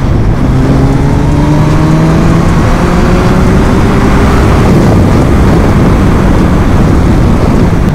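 Kawasaki Ninja 1000's 1043 cc inline-four accelerating hard under heavy wind rush. The engine's pitch climbs steadily for about four and a half seconds, then breaks off about halfway, and the rushing wind takes over.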